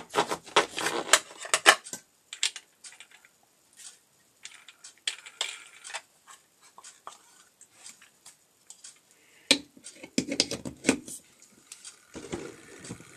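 Angle-grinder discs and hardware being handled and fitted, metal clinking and clattering: a quick run of sharp clicks at the start, sparse ticks through the middle, and another bout of knocks and clatter near the end.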